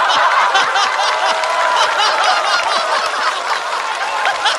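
Studio audience laughing loudly, many voices at once, in a steady wave of laughter after a punchline.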